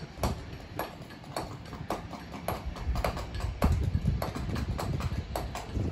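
Stonemasons working stone with mallet and chisel: a steady run of sharp knocks, about two a second and somewhat uneven.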